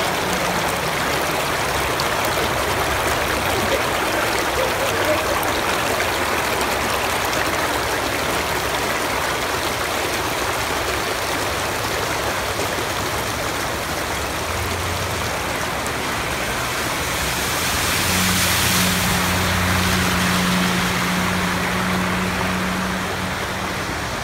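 Water from a broken water main boiling up through the road surface and rushing across the flooded street, a steady gushing. About three-quarters of the way through, a low steady hum joins in for a few seconds.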